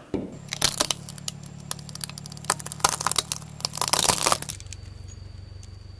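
Plastic toy monster trucks cracking and crunching under a car tyre, a rapid run of sharp cracks and snaps that stops about four and a half seconds in. A low steady hum runs underneath.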